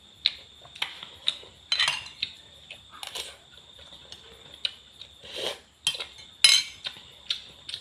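Cutlery clinking and scraping against dishes in irregular knocks and short scrapes.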